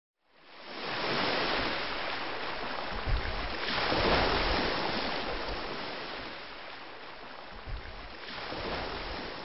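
Ocean waves washing in, a steady rushing hiss with slow swells, loudest about four seconds in.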